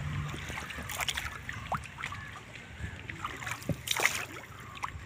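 Wooden paddle working the water beside a woven coracle: scattered small splashes and drips from the strokes, with the loudest splash about four seconds in.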